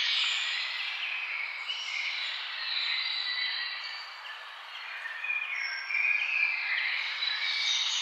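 Many birds singing and calling at once in a dense, overlapping chorus of short high calls.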